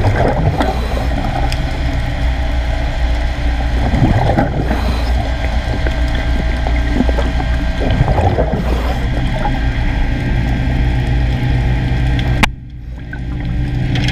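Underwater recording: a steady low machinery hum with a swell of exhaled bubbles from a diver's breathing gear about every four seconds. The sound drops away abruptly near the end and builds back up.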